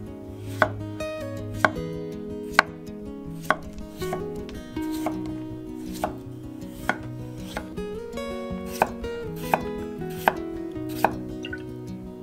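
Kitchen knife cutting peeled potatoes into cubes on an end-grain wooden cutting board: sharp knocks of the blade striking the board, roughly one a second.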